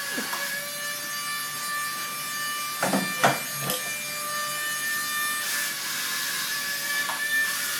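Wall-climbing toy car's suction fan motor whirring steadily with a high hum and hiss as the car drives across the wall, with a few short knocks about three seconds in.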